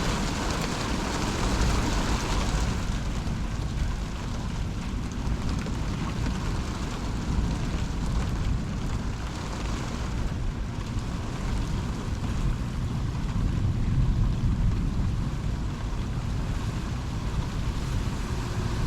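Thunderstorm rain falling steadily with gusting wind, the wind rumbling on the microphone.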